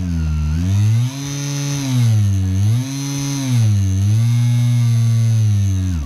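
Brushless eFoil motor running free on a bench under remote throttle, its hum falling and rising in pitch several times as the trigger is feathered, then holding steady at a higher speed near the end.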